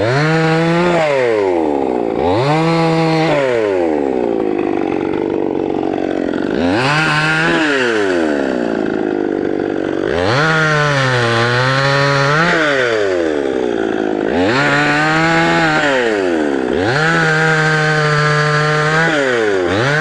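CNC machine's motors whining through a series of moves, about six in all: each time the pitch climbs quickly, holds steady, then slides back down, over a steady rasp of cutting.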